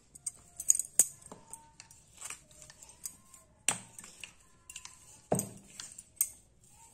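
Dough being rolled out with a ridged steel rolling pin on a marble rolling board: irregular clicks and taps of the pin and metal bangles against the stone, with a few louder knocks in the second half.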